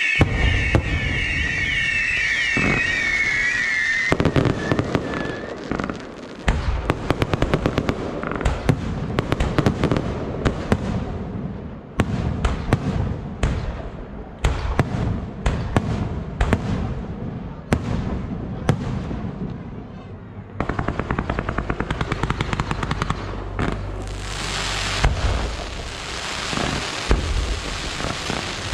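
Aerial fireworks display: shells bursting and barrages firing in rapid volleys of bangs and crackles. Whistles fade out in the first few seconds, and a dense hissing crackle comes near the end.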